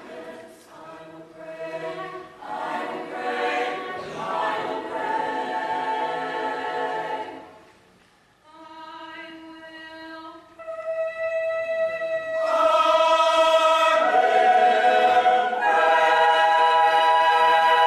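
Background music: a choir singing long held chords, dropping almost to quiet about eight seconds in, then swelling louder on sustained notes.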